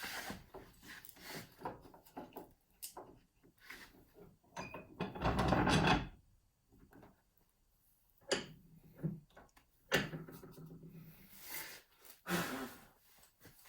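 Oak workpieces knocked into place and a woodworking bench vise being wound and tightened: scattered wooden clunks and clicks, with one louder scrape lasting under a second about five seconds in.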